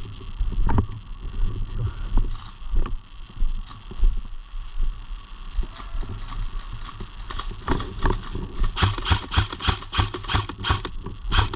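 Footsteps crunching through dry leaf litter and twigs, with rumbling handling and clothing noise from a body-worn camera; about seven seconds in the steps quicken into a fast run of crunches, about four or five a second.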